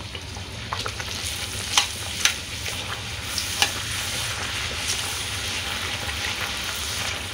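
Puris deep-frying in hot oil in a karahi: a steady sizzle as a metal slotted spoon stirs through the oil, with a few sharp clicks.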